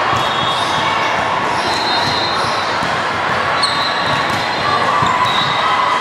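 Volleyball rally in a large hardwood-floored sports hall: the ball is served and hit back and forth, with sharp slaps of hand on ball, over a steady din of voices and high, brief squeaks.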